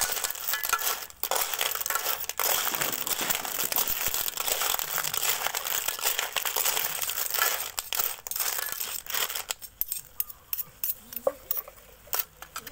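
Shell-on cockles being stir-fried in a metal wok: a dense crackling sizzle with the shells clicking and clattering as they are tossed. About nine and a half seconds in the stirring and sizzle drop away, leaving scattered clinks of shell and spatula against the pan.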